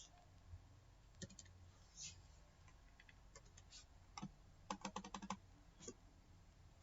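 Computer keyboard being typed on: scattered single keystrokes, with a quick run of about seven keys a little past the middle.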